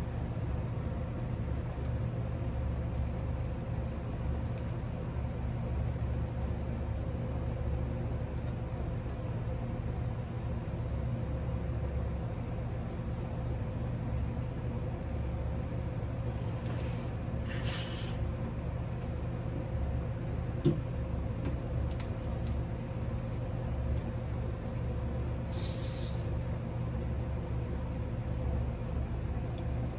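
Steady low machine hum with a constant tone. A few faint rustles come in the second half, and one short sharp knock about two-thirds of the way through.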